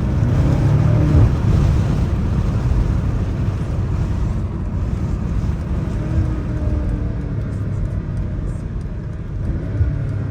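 BMW M5 Competition's twin-turbo V8 running at cruise, heard from the driver's seat over a steady hiss of wet-road tyre spray and rain, getting a little louder about a second in. The car is still in Comfort mode, so the exhaust gives no pops or crackles.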